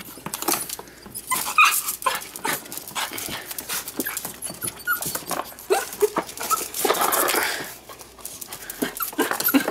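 Miniature beagles at a pet carrier: a few short whimpers and yips among many small clicks and scuffles.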